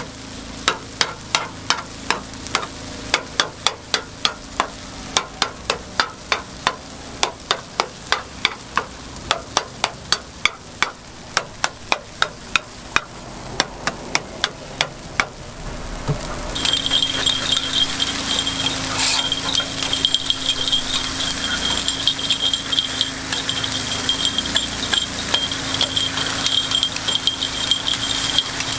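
A metal scraper chops down on a takoyaki griddle, making sharp, evenly spaced knocks about three a second. About halfway through this gives way to a dense, continuous clatter of metal picks turning the balls in their hot cups, over frying sizzle.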